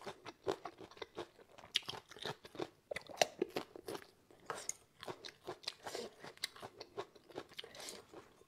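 A person chewing and crunching food close to a clip-on microphone: many irregular crisp crunches with wet chewing between them.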